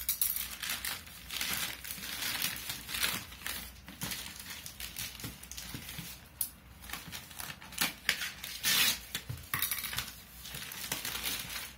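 Plastic courier mailer bag crinkling and rustling in irregular bursts as it is opened by hand and a boxed graphics card is slid out of it. The loudest rustling comes about nine seconds in.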